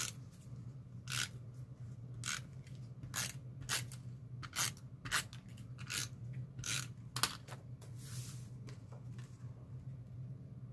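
Adhesive tape runner pressed in short strokes along the back of a cardstock panel, about one stroke a second, then stopping about eight and a half seconds in as the panel is set in place.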